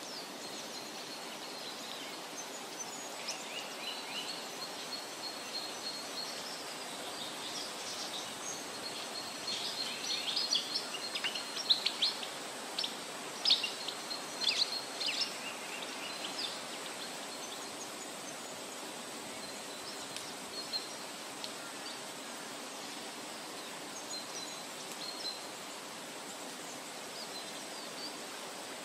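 Birds chirping over a steady hiss of outdoor ambience. The calls are thickest and loudest around the middle and thin out toward the end.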